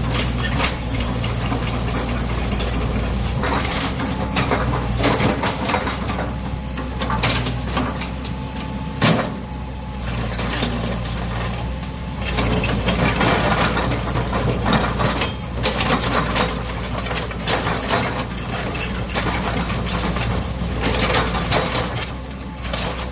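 Hitachi EX120-5 tracked excavator's diesel engine running steadily, with frequent knocks and clanks from the machine working, one sharper knock about a third of the way in.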